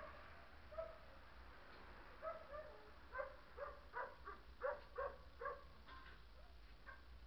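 Faint dog barking: a few single barks, then a quick run of barks from about three to five and a half seconds in.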